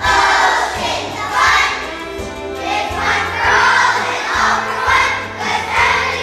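Children's choir singing a song together with instrumental accompaniment that carries a pulsing bass line.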